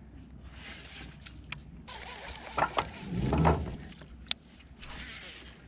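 Handling noise from a baitcasting rod and reel being worked in a boat: scattered sharp clicks and short rushes of noise, with one louder dull bump a little past halfway.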